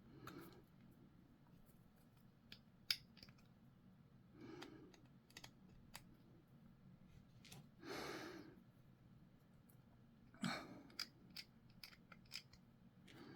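Hobby sprue clippers snipping small plastic miniature parts off the sprue: a series of faint snips and small clicks, with a brief rustle of plastic handling in between.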